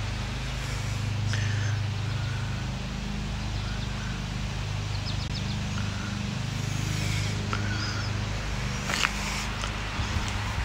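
Steady low droning hum, with faint short high chirps now and then and a few low thumps near the end.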